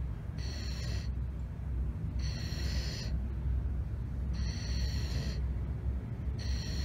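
Sleeping golden retriever breathing, with a high whistle through the nose on each breath, four times about two seconds apart, over a steady low rumble.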